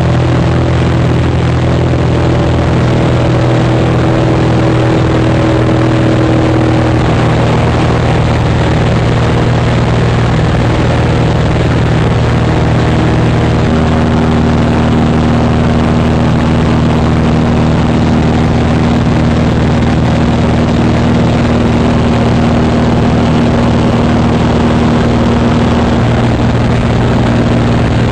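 Maule M-5-235C's 235 hp six-cylinder Lycoming O-540 engine and propeller running steadily, heard from inside the cabin. The engine note shifts slightly about seven seconds in and again about fourteen seconds in.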